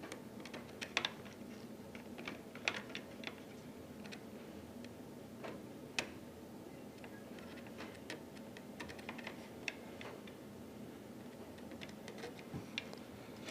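Irregular sharp clicks and taps of small tools, screws and fingers working on the plastic body of a Syma X8C quadcopter being taken apart, over a faint steady hum.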